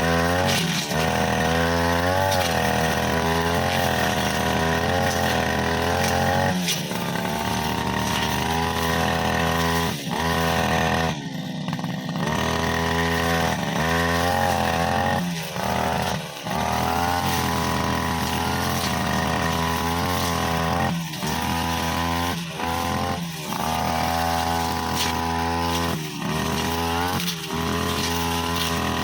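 Brushcutter engine running under load with a metal blade cutting tall grass and hard saplings. Its pitch sags and recovers over and over, with short dips every few seconds.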